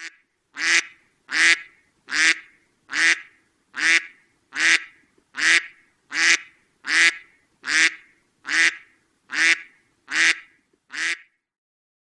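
Duck quacking in a steady, evenly paced series, a little more than one quack a second, about fourteen in all, stopping near the end.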